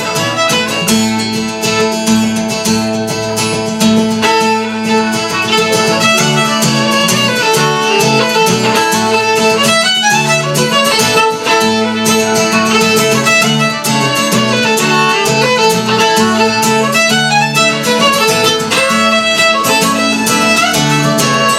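Fiddle playing a tune at a quick pace, accompanied by acoustic guitar.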